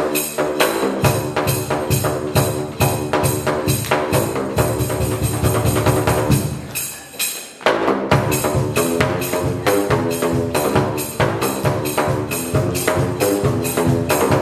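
Home-made drain-pipe percussion instrument, its open pipe ends struck fast with flip-flops, playing a pitched melody of quick slapping notes over a deep beat. About halfway through the playing fades and stops for a moment, then starts again at once: the change from one cover tune to the next in a medley.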